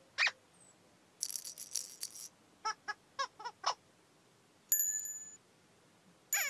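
Playful cartoon sound effects from a children's TV show. A short chirp comes first, then a shaken rattle, then five quick squeaky toots. About five seconds in there is a bright bell-like ping, and another squeaky chirp comes near the end.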